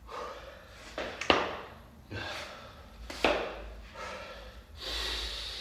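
Hard, forceful breathing of a man straining through heavy sandbag lifts, a run of loud exhalations. A sharp thud just over a second in and another about three seconds in, the heavy sandbag being handled.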